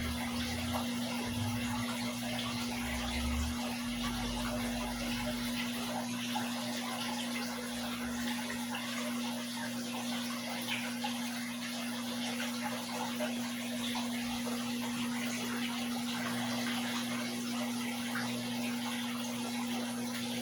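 Aquarium water running and splashing steadily from the tank's filter and pump, over a constant low hum. A low rumble comes and goes in the first few seconds.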